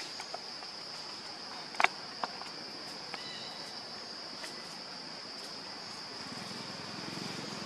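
Insects buzzing in a steady, high-pitched drone, with a few short sharp clicks, the loudest about two seconds in.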